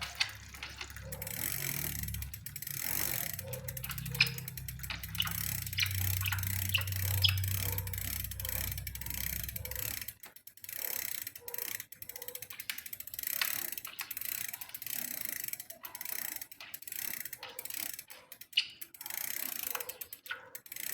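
Bicycle drivetrain clicking and ticking irregularly as the crank turns, with a low rumble that stops about halfway. The noise sounds like a bad bottom bracket bearing, but the owner traced it to a faulty crankset letting the chain scrape on the derailleur.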